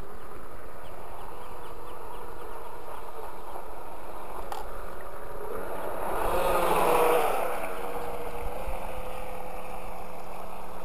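Radio-controlled Warrior Mk2 model boat running on the water with a steady motor whine. It swells into a louder rush of motor and wash as the boat passes close by about six seconds in, then settles back as it moves away.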